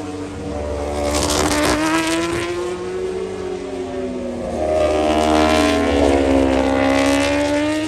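Racing motorcycle engines on the circuit, their notes rising and falling through the gears as bikes pass, with two louder surges.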